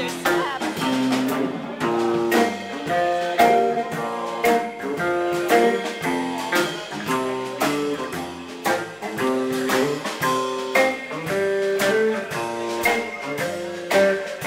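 Guitar-led band music playing with a steady beat, plucked notes changing every fraction of a second.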